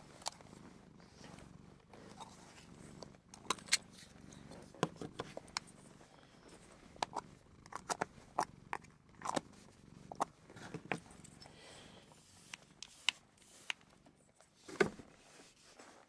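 A vintage camera and lens handled close to the microphone: irregular sharp clicks and taps from the mechanism and body, many in a row, the loudest a second or so before the end, over a faint low hum.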